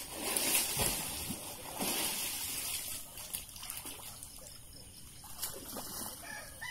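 Pond water splashing and sloshing around a person moving waist-deep through it, in a few louder surges over the first two seconds, then softer.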